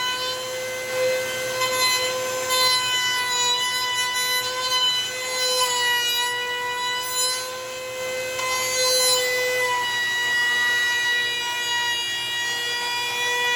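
Wood router running with a steady high-pitched whine while its bit rounds over the edges of a cherry board. The pitch wavers slightly and there is a rushing cutting noise as the bit takes wood.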